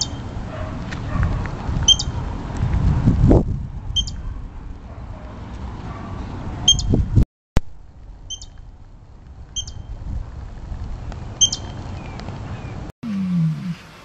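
Short, high chirps from an animal, one every second or two, over a low rumbling noise that fades about three seconds in. A low call starts in the last second.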